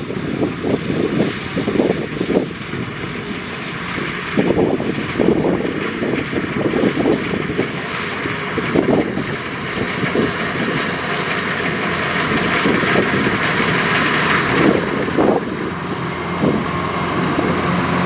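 Kubota DC105X rice combine harvester running as it cuts standing rice: a steady engine and machinery noise from the reel, cutter bar and threshing, growing slightly louder in the second half. Wind buffets the microphone in gusts.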